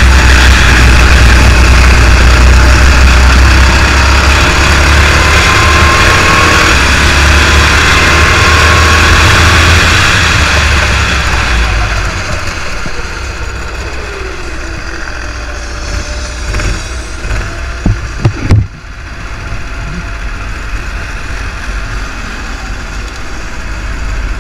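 Racing kart engine running hard at speed with a heavy low rumble, then easing off about halfway through as the kart slows and runs on quietly at low revs. A few sharp knocks sound about three-quarters of the way in.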